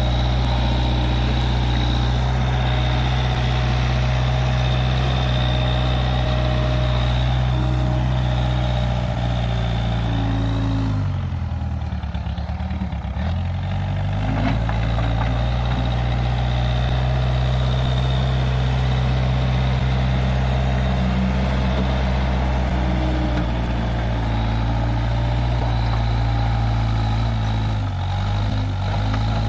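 Case 580G backhoe loader's diesel engine running steadily at working revs. About eleven seconds in, its revs sag for a few seconds, then pick back up, with a briefer dip near the end.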